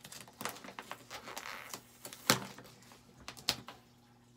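Rustling and crinkling of packaging as a blanket is pulled out of its box, with scattered clicks and one sharp knock a little over two seconds in.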